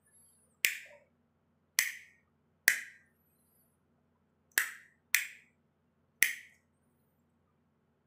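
Two-way light switches being flipped, six sharp clicks spaced irregularly over several seconds, switching the bulb on and off.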